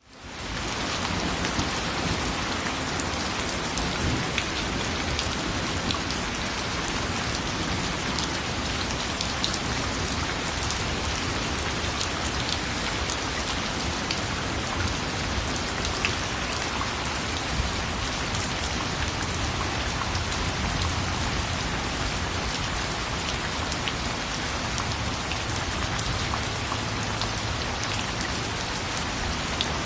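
Steady rain falling, with individual drops ticking sharply through the hiss; it fades in at the very start.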